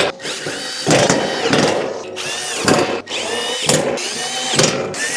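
Power drill/driver driving screws into the cart's 18-gauge steel panels in about five short trigger pulls, the motor whining up and back down on each.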